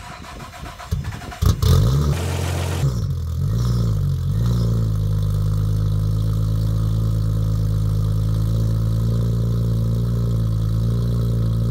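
A Nissan Skyline R33's tuned turbocharged straight-six turns over briefly on the starter. It catches about a second and a half in with a sharp rev flare, then settles into a steady, loud idle heard from right at the large single exhaust tip.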